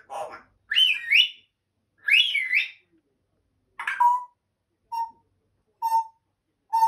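African grey parrot whistling twice, each whistle gliding up and down, then giving a run of short, clipped calls about once a second that sound like a small dog's bark.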